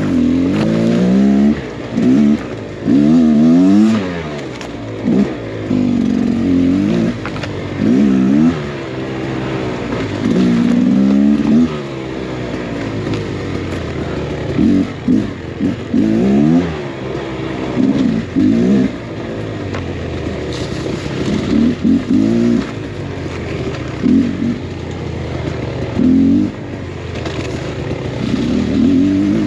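Beta X Trainer 300 two-stroke dirt bike engine under repeated short bursts of throttle. The pitch climbs and drops every one to two seconds, with lower running between the bursts.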